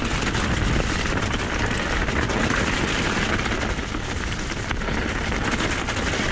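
Mountain bike descending a rocky, wet trail at speed: steady rushing wind noise on the action-camera microphone over the tyres rolling on loose stones, with many small rattles and knocks as the bike bounces over the rocks.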